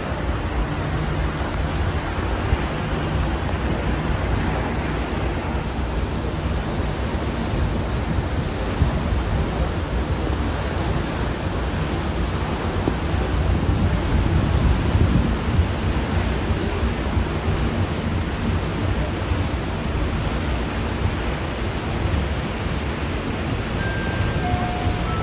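Steady rushing noise of wind and water aboard the Staten Island Ferry while it is under way, heaviest in the low end.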